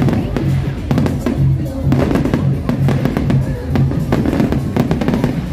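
Aerial fireworks bursting and crackling overhead, mixed with loud music with a steady bass drum beat about twice a second.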